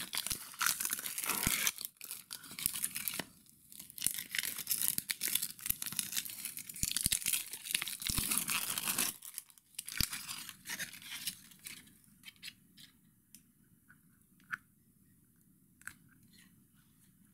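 Sterile paper-and-plastic medical packaging being peeled open and crinkled by hand, a dense crackling rustle for the first half. It then goes quieter, with only a few small clicks.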